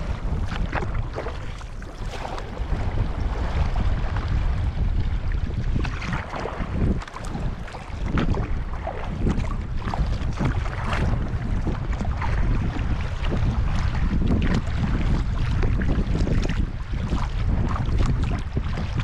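Wind buffeting the microphone in a constant low rumble, with irregular splashing and sloshing of water around a kayak.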